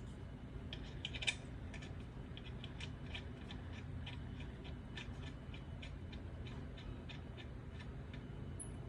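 Small metallic clicks and ticks, irregular, a few a second, as lug nuts are spun onto the wheel studs by hand, with one sharper click about a second in.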